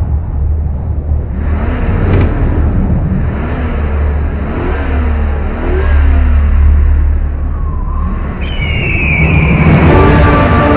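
Off-road SUV engines revving up and down again and again over a deep low rumble. A short falling whistle-like tone follows, and music comes in near the end.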